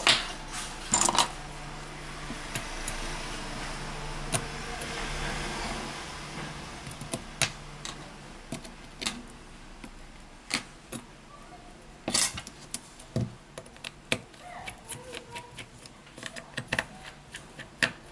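Small, irregular metal clicks and taps: a precision screwdriver and tweezers working the tiny frame screws of a smartphone, with screws set down on a silicone repair mat. A faint steady hiss with a low hum runs under the first several seconds, then fades.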